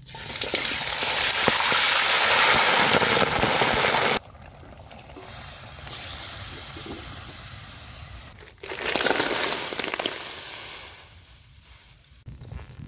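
Cooking in a steel wok over a wood fire, in several short cuts: a loud steady hiss for about four seconds that breaks off suddenly, then quieter cooking sounds, and a second loud hiss a little after eight seconds in that fades away.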